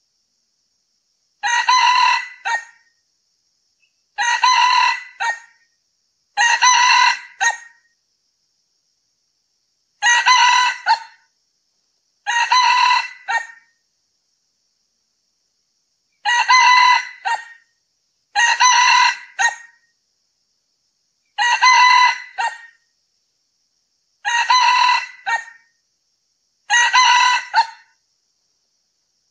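Male red junglefowl crowing, about ten crows repeated every two to four seconds. Each crow is a short phrase of about a second that ends in a brief clipped note, with dead silence between crows.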